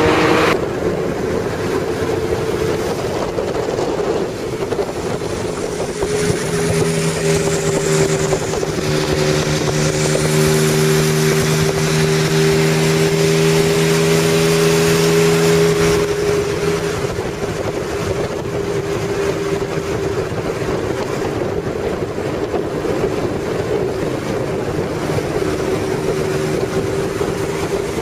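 Honda CBX1000's air-cooled inline-six engine running at an even cruising speed, its steady multi-toned exhaust note holding pitch, with wind noise over the microphone of a vehicle pacing the bike.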